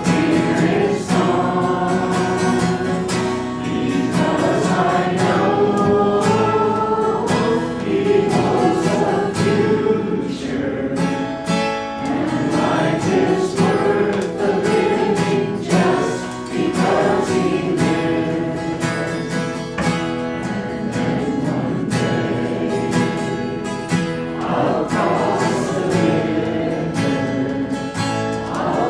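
A congregation or choir singing a hymn together, accompanied by an acoustic guitar.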